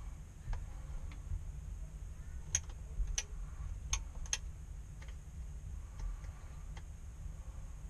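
Sharp light clicks and taps, about eight spread irregularly over several seconds, as a hand tool is worked against a ceiling light fixture's lampholder.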